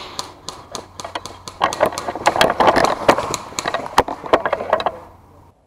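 Quick running footsteps with irregular clicks and knocks, cutting off suddenly near the end.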